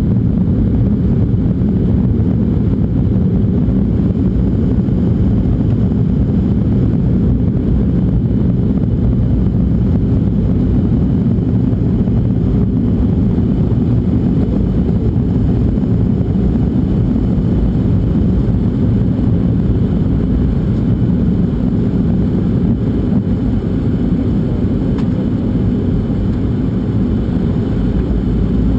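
Steady low rumble of a jet airliner's engines and airflow heard inside the passenger cabin during the descent on approach.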